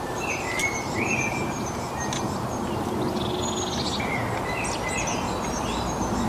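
Birds chirping: many short, repeated chirps and brief down-slurred calls over a steady background hiss of outdoor noise.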